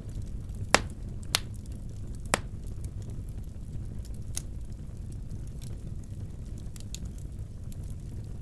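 Wood fire burning in a fireplace: a steady low rumble with scattered crackles, and three sharp pops in the first two and a half seconds.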